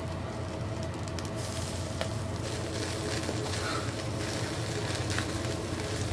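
Food crackling and sizzling as it cooks over a fire, with scattered small pops over a steady machine-like hum.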